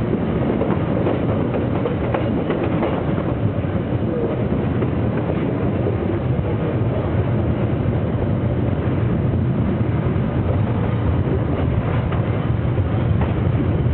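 Lézard Rouge tourist train running along the line, heard from aboard: a steady rumble and rattle of the carriage wheels on the rails.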